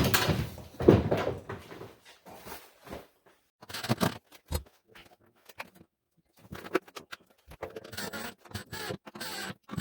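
Scattered handling noises of work on a tool cart: irregular knocks, clicks and scrapes, with a louder thump about a second in and a brief lull around the middle.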